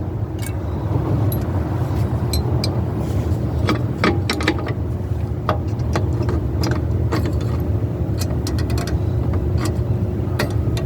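Scattered light metallic clicks and taps of drum brake hardware being handled as a hold-down spring and retaining clip are fitted, the sharpest about four seconds in, over a steady low rumble.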